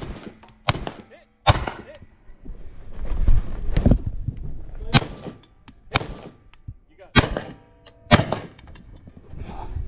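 Semi-automatic CZ Bren 805 rifle fired about eight times at steel targets, the shots roughly a second apart with a short gap after the third. Some hits leave a brief metallic ring from the steel.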